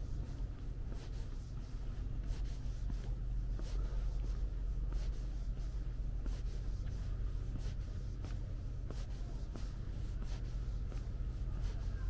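Footsteps of a person walking at a steady pace, about two steps a second, each a short scuff, over a steady low rumble.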